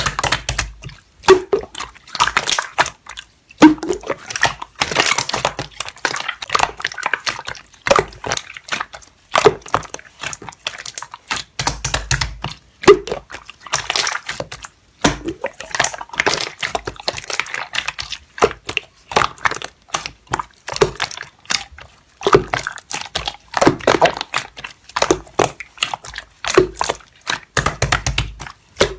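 Slime being squeezed and pressed by hand, making dense, irregular wet clicks and pops.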